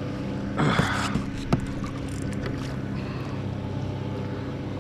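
Brief splashing about half a second in as a big freshwater drum is brought alongside a kayak, followed by two sharp knocks, over a steady low hum.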